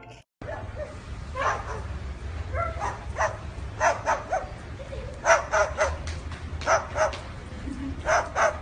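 A run of short, high bark-like yaps, often in quick twos and threes.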